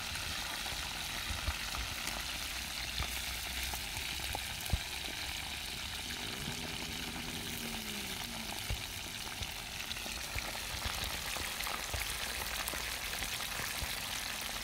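Fish frying in hot oil in a pan over a wood fire: a steady sizzle, with a few light clicks.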